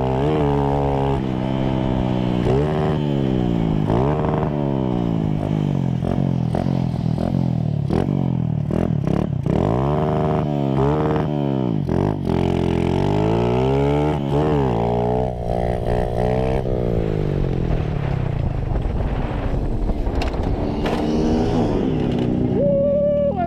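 Small motorcycle engine heard from on the bike, its revs rising and dropping back over and over as the throttle is opened and closed, with wind rushing on the microphone. A brief high steady tone sounds near the end.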